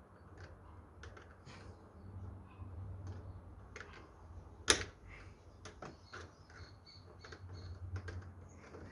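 Fingers clicking and tapping on the plastic parts of an HO-scale model locomotive shed, a scatter of light clicks with one sharp, louder click about halfway through.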